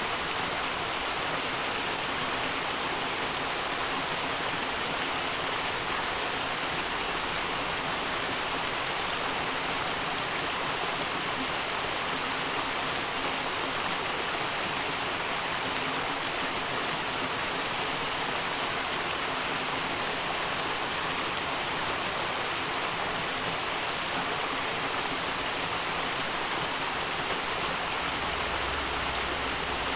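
Small wild stream flowing: a steady, even rush of water with no breaks.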